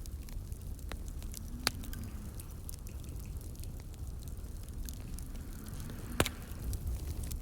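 Wood fire burning with a low steady rumble and scattered crackles, including two sharper pops, one about two seconds in and a louder one near the end.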